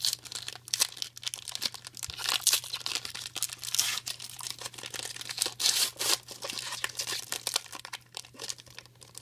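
A sealed trading card pack's wrapper being torn open and crinkled by hand: a continuous run of crackling and rustling.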